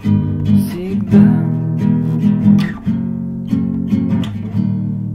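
Song accompaniment on acoustic guitar, strummed chords. A male voice sings one word about a second in, and then only the guitar goes on.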